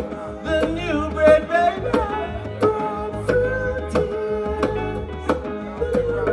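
Live band music: a man sings a melody into a microphone over drum hits and steady bass notes.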